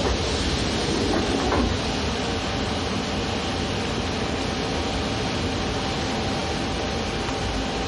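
Underground metro train noise: a steady rumble and hiss with a faint steady whine, a little louder about a second in.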